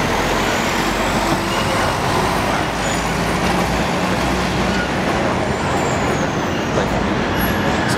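Steady city street traffic noise: a continuous wash of passing vehicles, with a low engine hum underneath.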